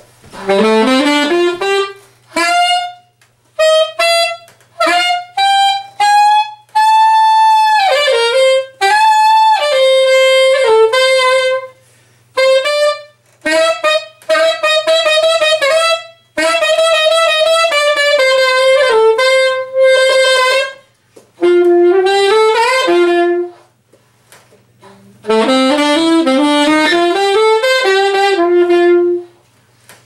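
Unaccompanied saxophone playing jazz lines: quick rising runs and held notes, broken by short rests, over a faint steady low hum.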